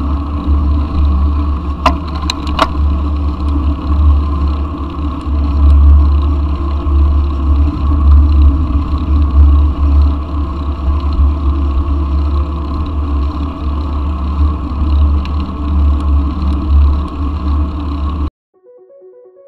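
Wind rumbling on the microphone of a camera mounted on a moving mountain bike, mixed with tyre and road noise and cars going by. Two sharp clicks sound about two seconds in, and everything cuts off suddenly near the end.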